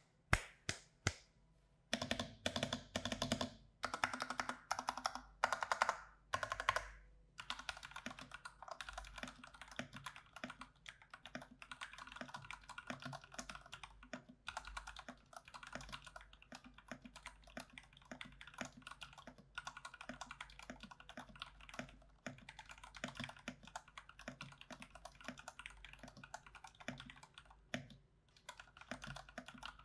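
Stock IQUNIX mechanical keyboards with Cherry MX Red linear switches being typed on. For about the first seven seconds there are short separate bursts of keystrokes, then steady fast typing.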